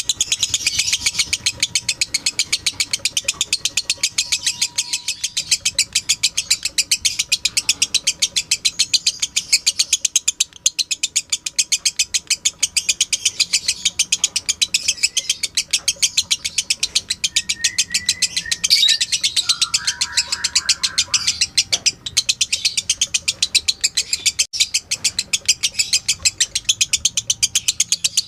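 Lovebird in a long, unbroken ngekek chatter: a fast, even rattle of high, shrill notes that does not pause. A few lower chirps join in about two-thirds of the way through.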